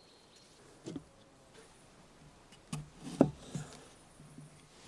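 A hand handling a small tomato on a weathered wooden tabletop, knocking against the boards: one soft knock about a second in, then a quick cluster of knocks around three seconds in, one of them sharp and loud.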